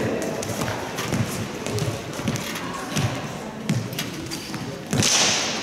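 Fencers' footsteps thudding on a sports-hall floor, with sharp knocks and clacks of synthetic plastic longswords during a sparring bout, echoing in the hall. A louder noisy burst comes about five seconds in.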